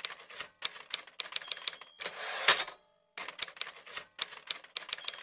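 Typewriter sound effect: two runs of rapid key strikes, each ending with a short bell ding and the noisy slide of a carriage return.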